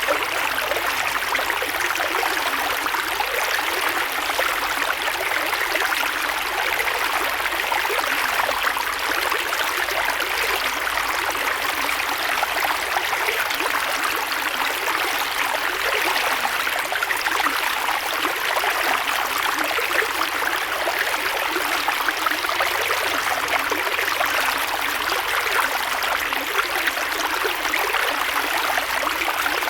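A creek flowing steadily, its water rushing and splashing over rocks in a dense, even wash of sound.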